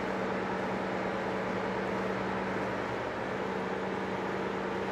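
Passenger boat under way: its engine gives a steady low hum under the even rush of water churning in its wake.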